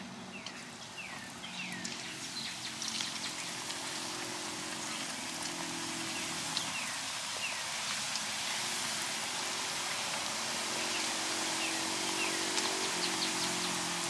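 Cut corn tortilla pieces frying in hot oil in an electric wok: a steady sizzle that grows louder as more pieces are dropped in.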